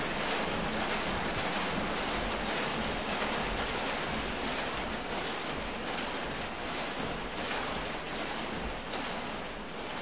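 Electric school bell ringing continuously, a dense, rapid metallic rattle that holds steady and eases a little toward the end.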